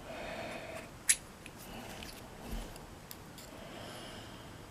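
Small metal clicks and faint scraping as a pin-tumbler mortise lock cylinder is taken apart to remove its pins, with one sharp click about a second in.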